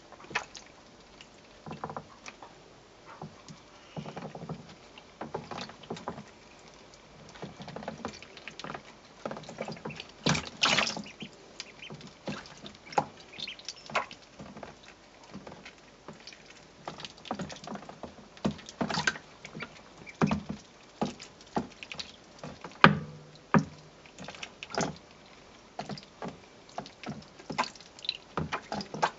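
Call ducklings paddling and splashing in shallow water in a plastic tray: irregular small splashes, drips and taps against the plastic, with louder flurries about ten seconds in and again about twenty-three seconds in.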